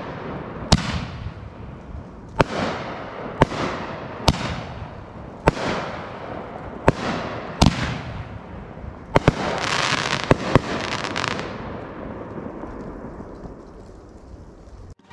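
Iron Man Fireworks 'Double Barrel' 500-gram cake firing its last shots: about ten sharp reports as shells launch and break, with crackling and glitter hiss after each break, dying away over the last few seconds.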